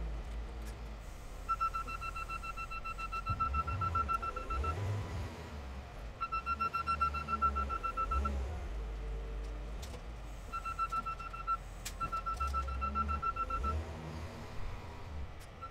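Case 621F wheel loader's diesel engine running under load, with its reverse alarm beeping rapidly in several spells as it backs up.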